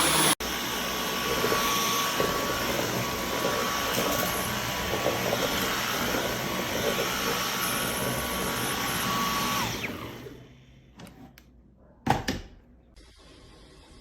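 Dyson V11 cordless stick vacuum running with a steady high whine, cutting out for an instant just after the start, then spinning down about ten seconds in. A few light clicks and a louder knock follow near the end.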